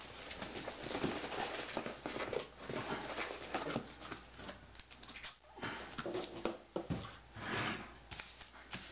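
Cardboard box flaps and plastic packaging rustling and crinkling as a parcel is opened by hand, with a few sharp knocks as things are set down on the table.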